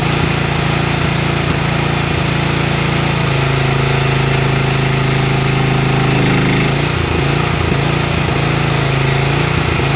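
QH12 mini excavator's engine running steadily, its tone changing to a steadier, stronger note from about three seconds in until nearly seven seconds, then going back.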